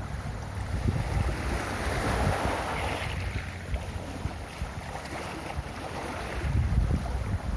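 Ocean waves breaking and washing up a beach, one surge building about a second in and easing off, with wind rumbling on the microphone.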